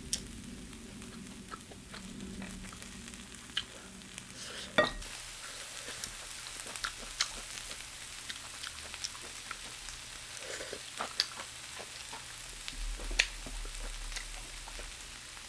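Stir-fried chicken gizzards, onions and bell peppers sizzling on a hot electric griddle: a steady hiss with scattered crackles and pops. A few sharper clicks stand out, the loudest about five seconds in.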